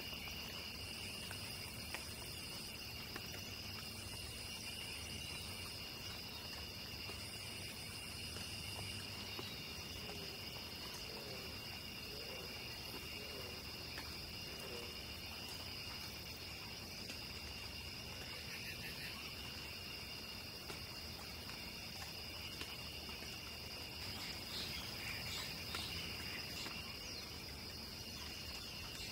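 Night insect chorus: crickets trilling steadily at two high pitches. A still higher insect buzzes in spells of about two seconds with short gaps until about nine seconds in, and a few faint low calls come through around the middle.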